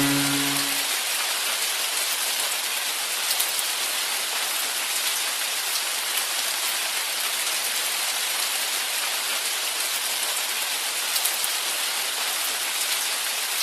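Steady rain: a dense, even hiss of falling drops with a few sharper drop ticks now and then.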